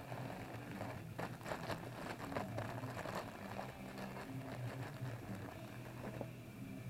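Handling noise: a run of small clicks and rustles, busiest through the middle and dying away near the end, over a steady low hum.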